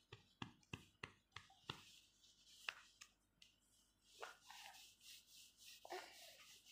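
Near silence with faint handling noises: a quick run of light clicks and taps in the first two seconds, a couple more around three seconds in, then a few soft muffled sounds.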